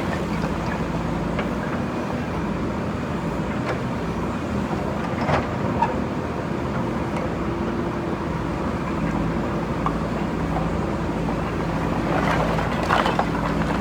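JCB backhoe loader's diesel engine running steadily, with a few short knocks about five seconds in and a brief clatter near the end.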